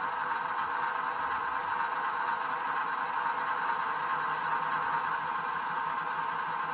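Sound decoder in a model Royal Scot steam locomotive playing a steady hiss of steam through its small on-board speaker while the engine stands still.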